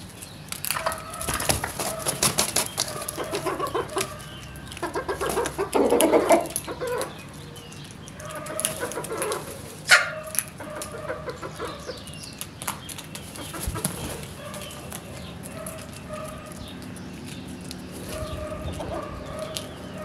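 Birds calling in a busy run of harsh, repeated calls, loudest about six seconds in, then a sharp sound about ten seconds in, followed by quieter, scattered calls.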